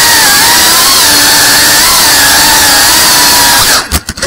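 FPV quadcopter's brushless motors whining loudly, heard through the onboard camera, the pitch wavering up and down with throttle. Near the end the whine drops out sharply for about half a second, stuttering a few times.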